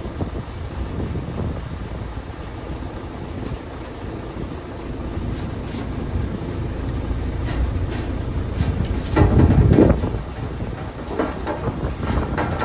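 An engine running steadily with a low rumble, and a louder rush of noise for about a second, some nine seconds in.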